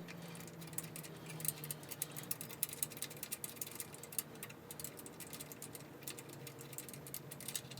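Light, irregular metallic clicks and taps of an 8 mm wrench working on the bolts of a small engine's low-oil sensor, several a second, under a faint steady hum.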